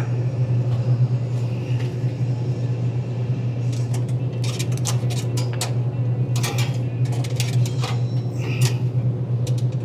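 Steady low hum, with scattered clicks and rustles of handling in the second half.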